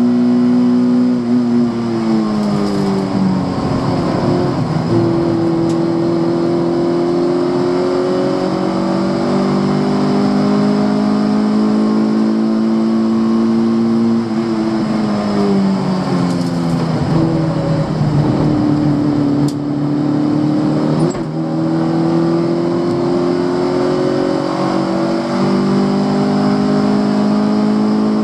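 Fiat Cinquecento 900's small four-cylinder engine under hard driving, heard from inside the car. The revs fall away three times and climb slowly back each time as the car brakes and accelerates again, with a quick dip about three-quarters of the way through.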